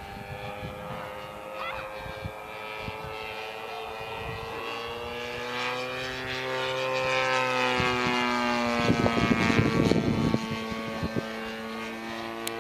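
Propeller engine of a giant-scale RC warbird model flying past, a steady droning note that grows louder and drops in pitch as the plane passes, loudest about eight to ten seconds in, with low rumbling gusts at the same point.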